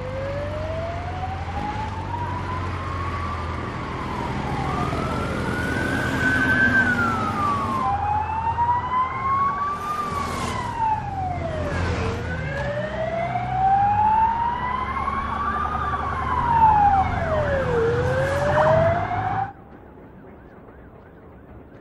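Police escort siren wailing in slow rising and falling sweeps of a few seconds each over a low rumble of motorcycle and traffic engines. A second siren briefly overlaps the first. The sound cuts off abruptly near the end.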